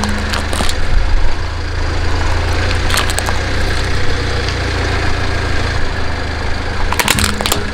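Car engine idling steadily, a low hum, with a few short sharp cracks about three seconds in and a cluster near the end.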